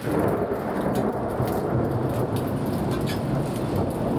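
Thunder rumbling from a thunderstorm. It breaks in suddenly and rolls on deep and steady for several seconds.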